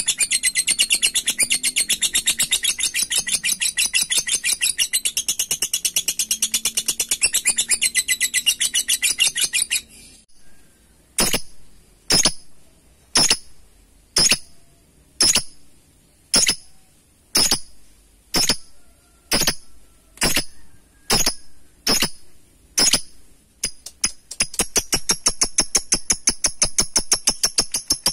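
Masked lovebird calling in a long 'ngekek': a very fast, continuous high rattling chatter for about ten seconds, then about a dozen sharp single chirps roughly one a second, then the fast chatter again near the end.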